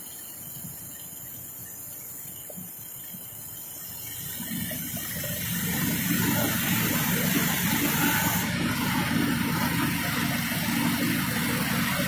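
Heavy machinery running with a steady hissing rumble, growing louder from about four seconds in and then holding steady.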